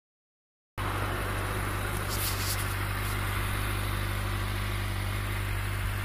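2013 Kawasaki Ninja 600's inline-four engine idling steadily on its stock exhaust, coming in just under a second in.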